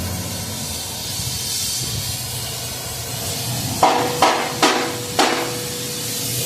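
Four sharp hammer blows on metal in a little over a second, each leaving a ringing note, over a steady hiss that fits a torch flame burning off powder coat.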